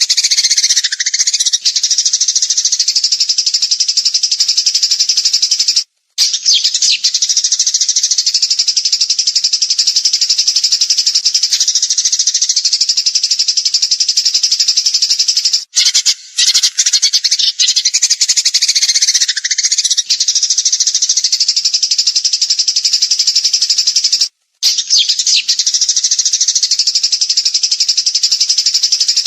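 Songbird masteran recording: a fast, high-pitched, rattling trilled song that runs on without pause, broken by three brief silences at the splices.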